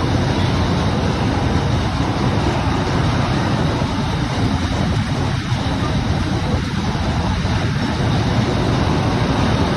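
WCA Himalaya carnival ride running: a steady, loud rumble of the ride in motion, with no breaks or changes.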